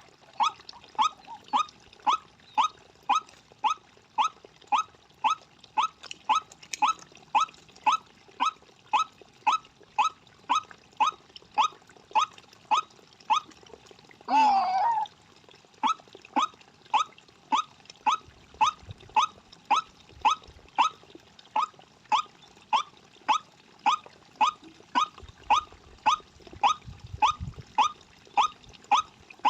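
White-breasted waterhen call repeated in a steady, even series of short notes, about two a second. About halfway through, one longer, louder wavering note breaks in.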